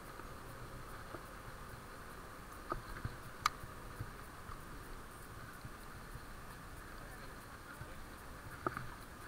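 Faint, muffled riding noise picked up by an SJ4000 action camera: a steady hiss with a few scattered clicks and knocks, the sharpest about three and a half seconds in.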